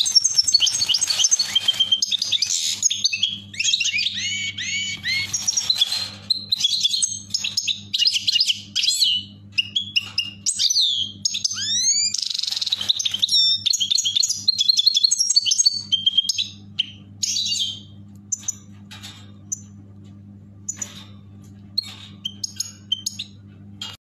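Caged European goldfinches singing: fast twittering chirps and trills, dense for about the first two-thirds, then thinning to scattered single calls. A faint steady low hum runs underneath.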